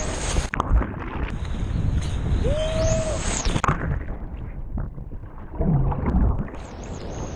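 Ocean waves breaking and water splashing around the swimmers, with wind buffeting the microphone.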